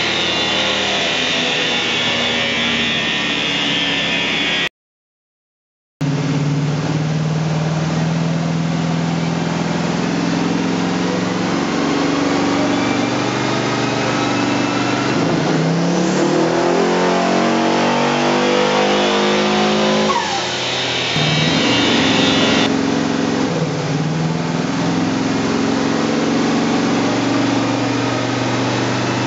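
Twin-turbo 363 cubic inch Ford Windsor V8 running under load on a chassis dyno, driving the rollers. The revs climb steadily for about six seconds in the middle of the run, then drop back. The sound cuts out completely for a little over a second early in the run.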